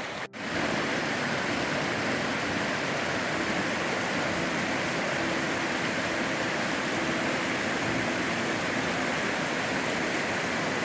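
Steady rush of fast-flowing water, cutting in after a brief drop-out about a third of a second in.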